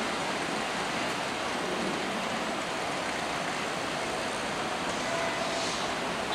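KRL electric commuter train rolling slowly over the points into the station, a steady, even running noise of wheels on rails.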